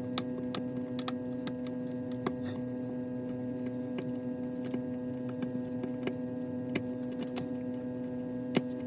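A steady electrical hum with irregular light clicks and taps, a few a second, from small tools working on a phone at a repair bench.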